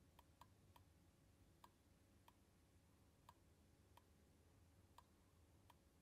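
Near silence: faint room tone with about nine soft, sharp clicks at uneven intervals.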